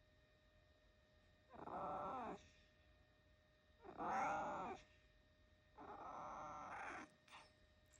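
A domestic cat meowing three times, each meow long and drawn out, roughly a second apiece, the last the longest.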